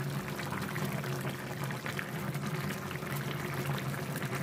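Pan of bottle gourd and rohu fish curry boiling, with a steady bubbling and crackling of many small pops, over a low steady hum.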